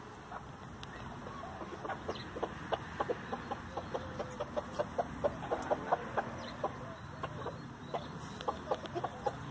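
Chickens clucking as they peck at a heap of fresh-cut grass: a rapid, irregular run of short clucks and pecking clicks, busiest around the middle.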